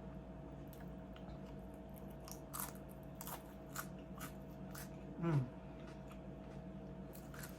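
Close-up crunching and chewing of Mexican-style food (nachos and shrimp tacos), a handful of crisp crunches spread through the middle, with a short falling 'mm' about five seconds in, over a steady low hum.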